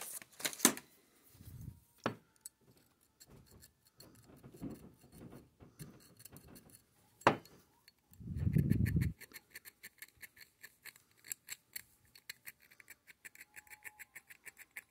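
Small needle file scraping back and forth on a steel lead-screw shaft, deburring it: scattered clicks and handling noises, then a fast even run of short strokes, several a second, through the second half. A sharp click about seven seconds in and a dull thump just after are the loudest sounds.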